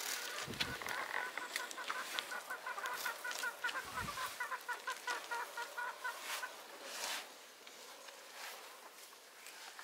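A chicken clucking in a quick run of short calls for about five seconds, then stopping. Under it is the soft squelching and rustling of dough being kneaded by hand in a plastic tub.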